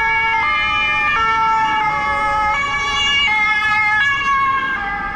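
Ambulance's two-tone siren sounding close by, stepping back and forth between a high and a low note about every 0.7 seconds, over the low rumble of road traffic.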